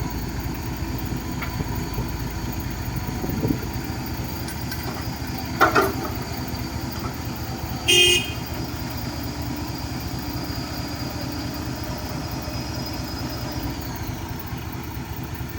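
Cat 312B excavator's diesel engine running steadily, with a short knock about six seconds in and a brief horn toot about eight seconds in.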